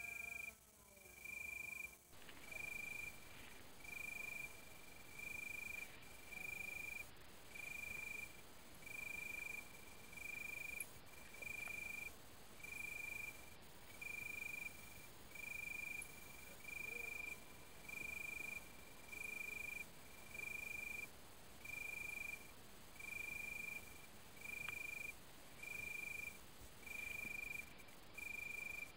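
A night insect chirping: a single high note of steady pitch, about half a second long, repeated regularly about once a second.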